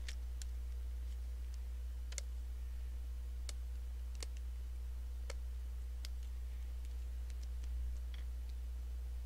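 Scattered, irregular small clicks and taps of fingers handling the laptop's plastic and the LCD cable connector and its clip, over a steady low hum.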